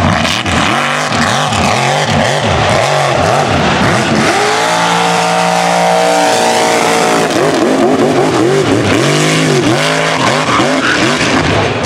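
Mega truck engines revving hard under racing load, their pitch climbing and dropping again and again, held at a steady high pitch for about two seconds midway.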